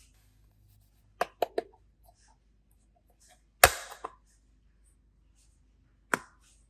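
Handling clicks from small plastic boxes. There are three quick sharp clicks, then a louder half-second crackle, then one more click near the end.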